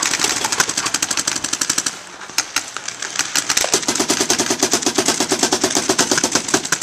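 Paintball markers firing in rapid strings of shots, about ten pops a second. The firing thins out briefly around two seconds in, then picks up again in a steady string.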